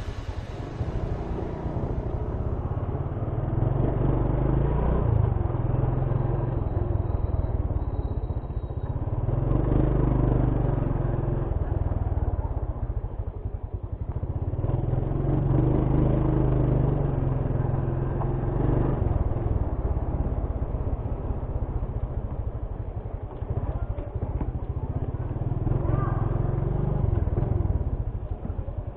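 Motorcycle running on the road, its sound swelling and easing every few seconds with a heavy low rumble.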